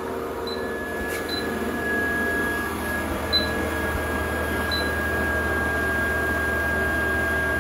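Superfit (Goplus 2-in-1 folding) treadmill running unloaded: the drive motor and moving belt give a steady high whine over a low hum. A few faint short chirps come and go on top.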